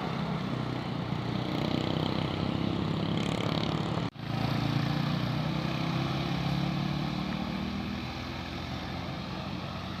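Heavy bus diesel engine running steadily under load on a steep climb. The sound cuts out for an instant about four seconds in, then drops a little in level near the end.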